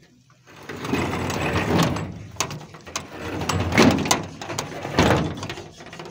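Large steel sliding gate rolling and scraping along its track: a rough grinding rumble that starts about half a second in, swells several times and dies away near the end.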